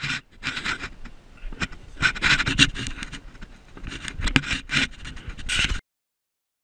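A GoPro camera in a dog's chest harness scraping and rubbing against the dog's fur and nearby wood as the dog moves, in irregular bursts that cut off suddenly near the end.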